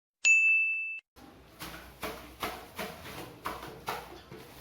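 A single high electronic beep lasting under a second, cut off sharply, followed about a second in by a run of short, soft scraping strokes, two or three a second, over a faint hiss.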